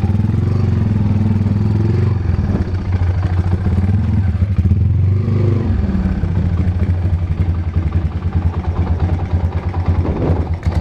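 Motorcycle engine running under way at a fairly steady speed, its low exhaust note pulsing, with a brief rise and fall in pitch about halfway through.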